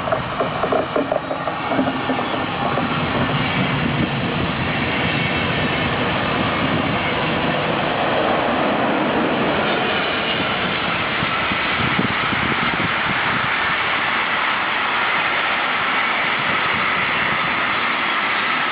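Train passing close by: a loud, steady noise of wheels on the rails.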